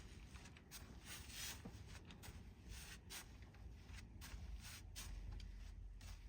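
Faint, irregular rustling and scraping: a dozen or so short strokes, as of things being handled or rubbed.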